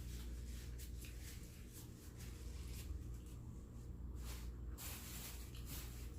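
Close-up chewing and small wet mouth clicks of a person eating, irregular and soft, over a steady low hum.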